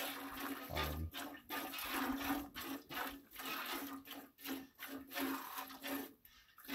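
Brown Swiss cow being hand-milked: short spurts of milk squirting into a stainless steel pot, about two to three squirts a second, with a brief pause near the end. The udder is nearly emptied, so this is the last of the milking.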